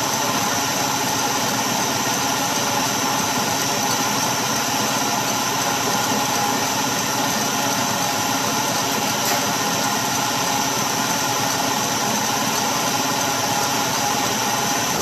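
Electric stand mixer running steadily, its wire whisk beating egg whites in a stainless steel bowl; a continuous motor whine with whisking noise as the whites thicken into a fine, dense foam for Italian meringue.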